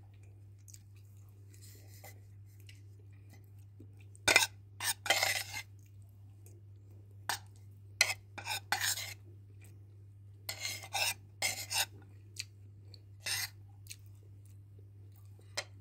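Cutlery scraping and clinking against a plate while eating, in short irregular strokes. The loudest is a sharp knock about four seconds in, all over a steady low hum.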